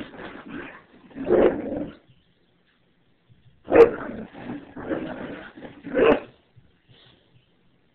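A dog barking excitedly in play. There is a burst at the start, a pause of about two seconds, then three more short bursts of barking a couple of seconds apart.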